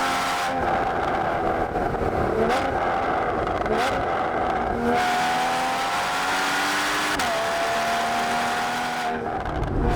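Porsche Boxster GTS 981's 3.4-litre flat-six engine and exhaust on the move, its note climbing and then stepping to a new pitch several times as it changes gear.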